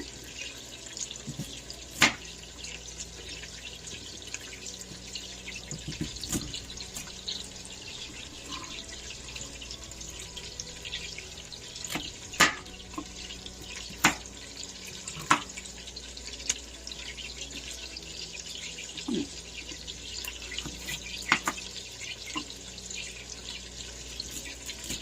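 Kitchen tap running steadily into a sink, with a few sharp knocks and clacks scattered through it.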